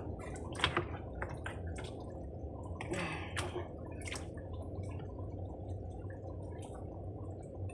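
A pot of stew bubbling, a steady low burble with scattered light clicks and taps over it.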